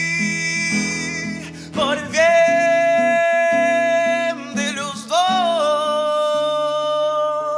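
Male singer holding long high notes without words, three drawn-out notes with short breaks between them, over an acoustic guitar playing sustained chords. This is the closing phrase of the song, dying away at the end.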